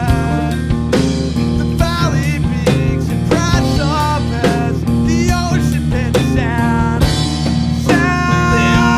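Rock music: a full band with guitars and drums playing at a steady beat.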